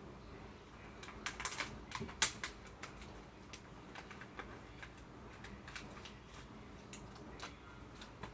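Thin plastic packaging bag being torn open and handled: a cluster of crinkles and sharp crackles about a second in, then scattered lighter crinkles.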